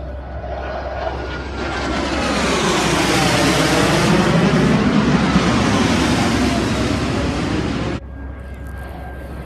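Jet aircraft flying past overhead, its roar swelling over a couple of seconds to a loud peak and then cut off suddenly about eight seconds in.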